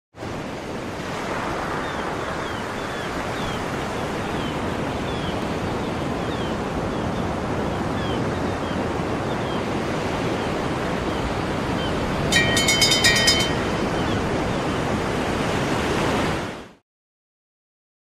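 Steady sea surf, with faint short falling chirps over it in the first half and a brief cluster of high ringing tones about twelve seconds in; the sound stops abruptly shortly before the end.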